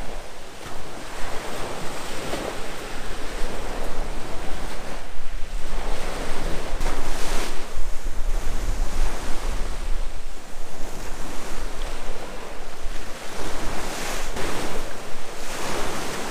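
Sea waves washing on the shore, with wind buffeting the microphone as a low rumble. Louder washes come about seven seconds in and again near the end.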